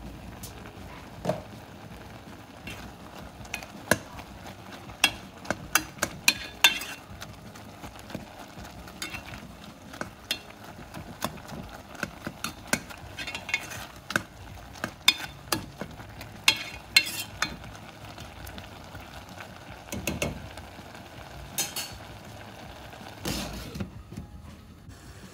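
Steel ladle stirring chopped greens simmering in a stainless steel pot, with repeated clinks and scrapes of metal on metal. A glass pot lid is lifted off and later set back on.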